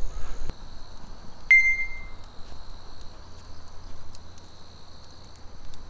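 Quiet ambience: a steady high-pitched whine of several thin tones over a low rumble, with one short ringing ping about a second and a half in.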